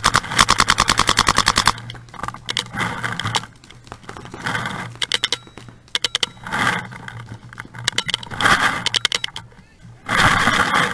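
Paintball markers firing: a fast string of shots at about ten a second for the first two seconds, then shorter strings and single shots on and off through the rest.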